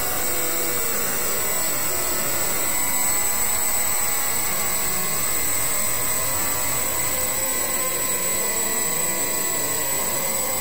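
Heavily effect-processed, distorted audio: a steady, dense rushing noise with a thin high whine held throughout.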